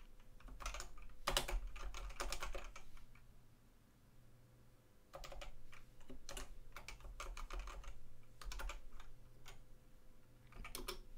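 Typing on a computer keyboard: quick runs of keystroke clicks, with a pause of about two seconds near the middle before typing resumes.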